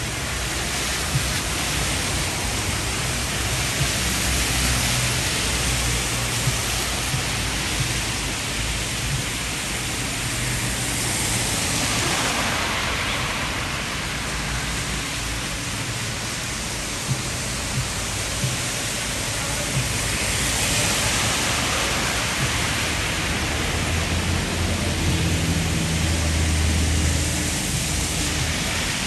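Heavy rain falling steadily on a street and wet pavement. The hiss swells twice, about twelve and twenty seconds in, as cars pass on the wet road, and a low rumble comes near the end.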